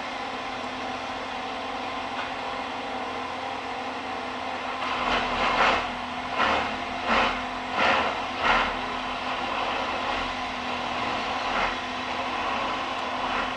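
Steady running hum of a moving rail vehicle. Partway through comes a run of about six clattering beats in quick succession, with one more later.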